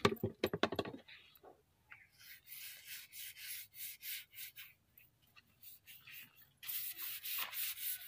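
Paintbrush bristles swishing over a wooden board in short back-and-forth strokes as finish is brushed on, ending in a longer continuous stroke. A quick run of knocks comes in the first second, the loudest part.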